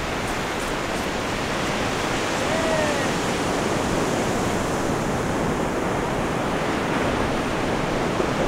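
Ocean surf breaking on the beach: a steady, even rush of waves.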